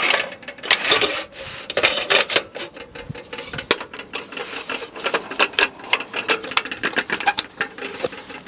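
Rapid, irregular clicks, taps and rattles of a vintage metal railway guard's oil lamp being handled, its metal parts knocking together.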